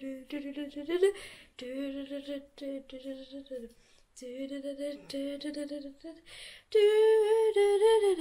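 A girl singing a wordless tune in short phrases of held notes, jumping to a higher, louder held note near the end.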